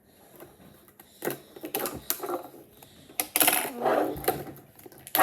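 Clicks, clatter and rustling of small objects being handled while a pair of scissors is fetched, with a longer rustle about three and a half seconds in and a sharp clatter at the end.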